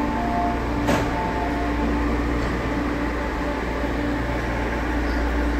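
An East Rail Line electric train standing at the platform with its doors open, its on-board equipment and ventilation giving a steady hum. There is a single short knock about a second in.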